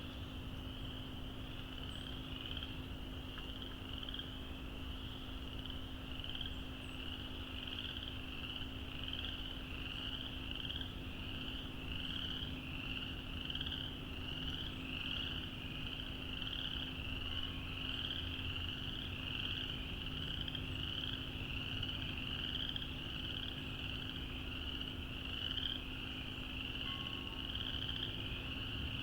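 A dense chorus of many frogs calling without a break: high, short calls that each rise in pitch, overlapping into a continuous shrill mass, over a faint low steady hum.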